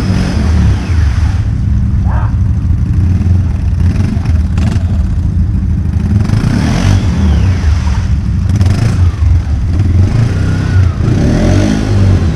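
ATV engines running loud, with the stuck quad revving up and down, rising twice, as it tries to drive out of the mud. It is in two-wheel drive, so its front wheels aren't turning.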